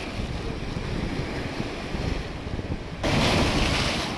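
Wind buffeting the microphone over surf washing around seawall rocks. About three seconds in, a wave breaks and splashes against the rocks, the loudest sound, lasting about a second before it cuts off.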